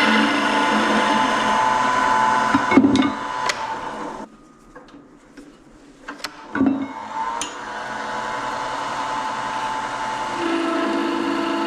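Laguna wood lathe running as a turning tool takes small cuts on a spinning wooden knob, a steady hum with scraping. About four seconds in it goes quiet for two seconds, with a few light clicks, then the running and cutting start again.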